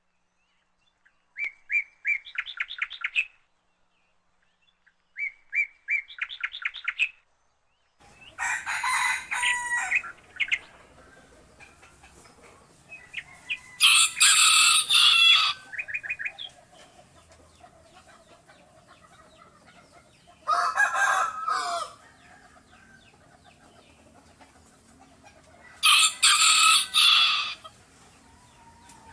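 Two short, rapid chirping trills, then a rooster crowing four times, each crow about two seconds long and several seconds apart.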